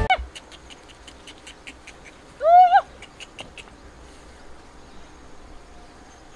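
A single short animal call, rising in pitch and then falling, about two and a half seconds in, over a run of quick, high, sharp chirps.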